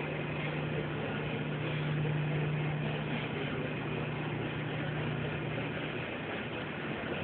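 A vehicle engine running steadily, a continuous low hum over background noise that fades briefly about six seconds in.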